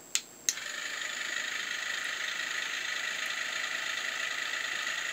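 Battery-powered facial spin brush switched on: a click, then a second click about half a second in that starts its small motor whirring steadily at a high pitch.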